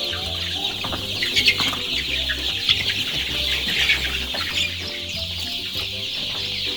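A large flock of eight-week-old chickens calling continuously, many overlapping high cheeps and clucks at once.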